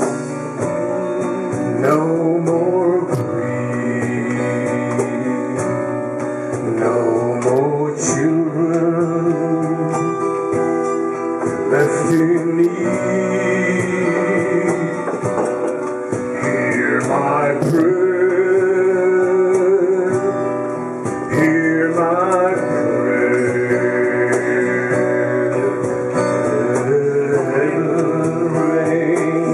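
Live acoustic band music: strummed and picked acoustic guitars with a male voice singing.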